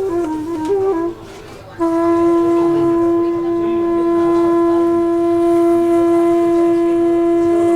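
A woodwind instrument playing as background music: a few short stepped notes, a brief drop in level, then one long steady note held from about two seconds in.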